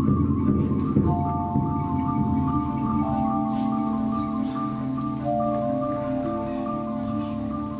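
Percussion ensemble playing: marimbas repeat a steady ostinato, with low drumming in the first second and long held mallet notes entering about one, three and five seconds in.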